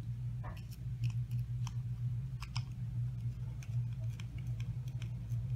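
Hand screwdriver turning a wood screw into a wooden mousetrap base, giving scattered small clicks and creaks over a steady low hum.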